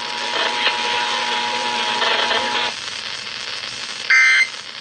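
Radio audio: a steady tone over hiss that cuts off about two and a half seconds in, then near the end a short, loud, buzzy Emergency Alert System end-of-message data burst, the digital code that closes the alert.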